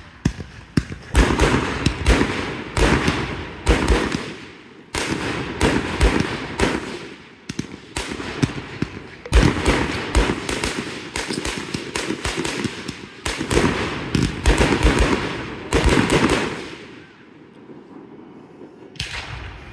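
Fireworks going off in quick volleys: many sharp bangs and pops, several a second, with crackle between them. They ease off about seventeen seconds in, and there is another loud burst near the end.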